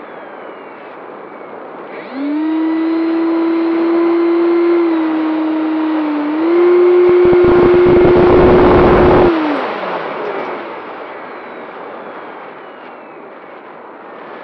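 Onboard sound of a Skysurfer RC glider's electric motor and propeller. The whine jumps in about two seconds in as the throttle opens, holds a steady pitch with a brief dip, and then falls away as the throttle is cut. Wind buffets the microphone heavily for a couple of seconds near the middle, and a steady rush of air remains while it glides.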